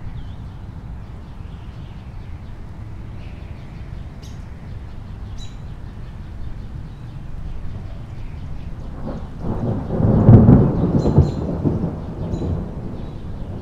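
Thunder: a steady low rumble that swells into a loud roll about nine seconds in, peaks, then fades again over the next few seconds. A few faint, short, high chirps are scattered through it.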